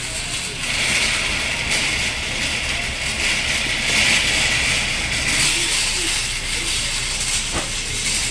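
Wire shopping cart being pushed over a tiled floor: a steady rolling rumble and hiss, with a single sharp click near the end.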